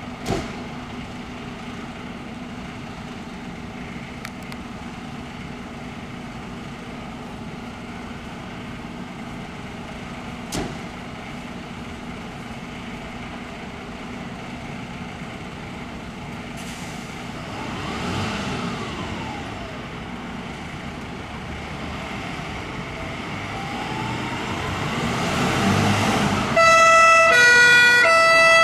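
Fire engine's diesel running steadily at first. From about 17 s a wailing siren rises and falls, growing louder. Near the end it gives way abruptly to loud two-tone horns alternating between a high and a low note.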